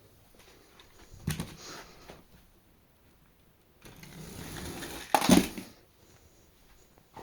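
Small toy cars clattering and rolling on a hard track. There is a knock about a second in, a stretch of rolling noise near four seconds, then a louder clack just after five seconds.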